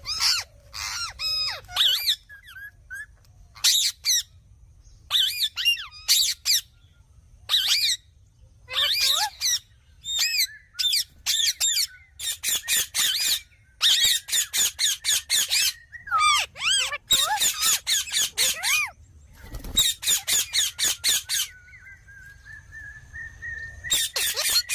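Indian ringneck parakeet calling: bursts of sharp, rapidly repeated screeches broken by short pauses, with a long steady whistle near the end.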